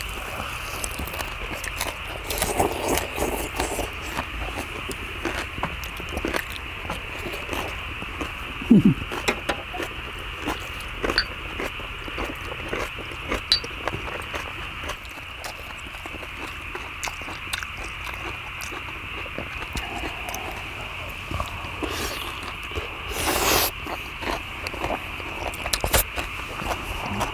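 People eating: chewing, with chopsticks and a spoon clicking and scraping against the cauldron lid, over a steady high hiss. A brief louder noisy rush comes near the end.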